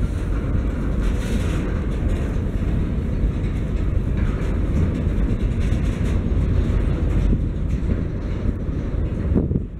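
Freight train of covered hopper wagons rolling past close by: a steady low rumble of steel wheels on the rails, with light clicking from the wheels running over rail joints.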